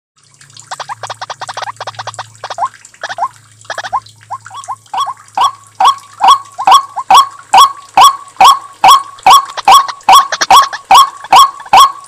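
White-breasted waterhen lure call: repeated sharp calls, soft and uneven at first, then growing louder about halfway through and settling into a steady run of two to three calls a second.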